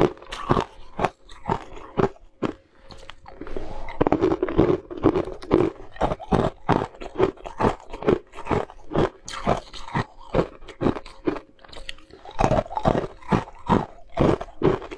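Ice cubes being bitten and crunched between the teeth, close up: a steady run of sharp crunches, about two to three a second, thicker for a moment about four seconds in.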